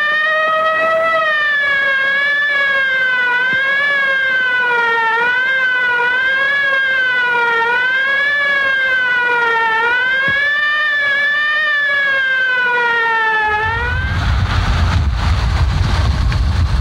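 A siren wailing on an old film soundtrack, its pitch wavering up and down about once a second. About 13 seconds in it cuts off suddenly and gives way to a loud, low rumble of wind on the microphone.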